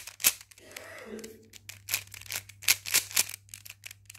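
Stickerless plastic 3x3 puzzle cube being turned quickly by hand: irregular clicking and clacking of the layers, several turns a second. A brief faint hum of a voice about a second in.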